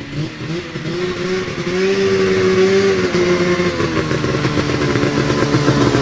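Two-stroke race snowmobile engine running at part throttle as the sled comes up close. The note rises and grows louder over the first couple of seconds, holds steady, then drops slightly in pitch near the end as the rider eases off.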